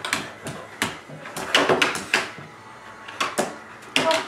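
A border collie's paws knocking and clattering on a hollow plastic storage-bin lid as she steps on and off it: a few irregular sharp knocks, quieter in the middle.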